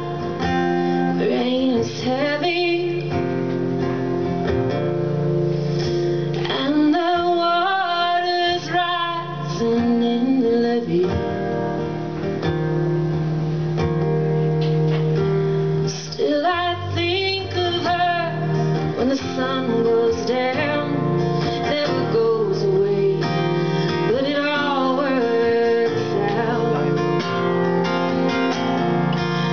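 Acoustic guitar strummed and picked, with a woman singing over it at intervals.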